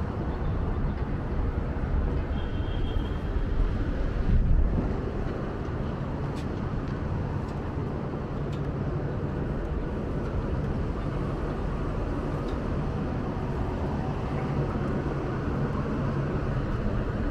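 City street ambience: a steady low rumble of passing vehicles, swelling briefly about four and a half seconds in.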